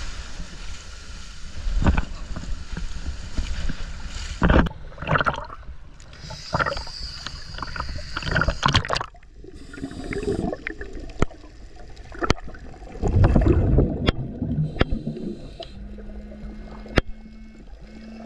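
Surf washing and splashing around divers wading into the sea. About nine seconds in the sound changes to underwater: scuba regulator exhalations bubbling, loudest about thirteen seconds in, with a few sharp clicks and a steady low hum from about sixteen seconds.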